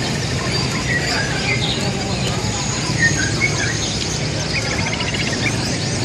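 Many caged songbirds chirping and whistling at once, short overlapping calls scattered throughout, over a steady low murmur of voices.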